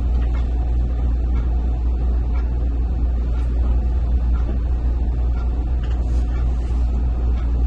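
Steady low rumble of room background noise, with a few faint soft knocks from handling linens at the cabinet.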